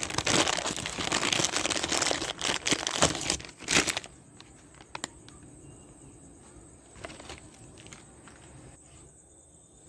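Plastic packaging crinkling and rustling for about four seconds as a new scooter handle grip is taken out, then quiet with a few faint clicks.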